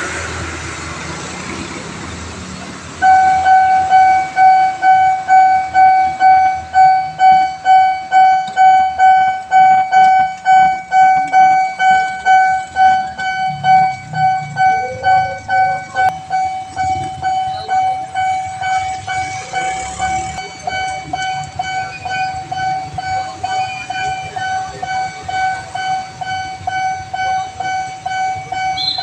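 Railway level-crossing warning alarm starting about three seconds in: a pitched electronic tone pulsing steadily, about two beats a second, a little quieter in the second half. Before it starts there is a broad rushing noise.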